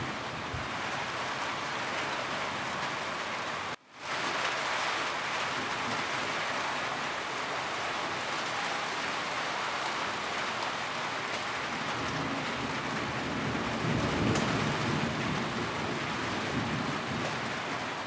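Steady heavy rain falling on a roof, an even hiss of drops. It cuts out for a split second about four seconds in. A low rumble of thunder builds from about twelve seconds and is strongest near fourteen seconds.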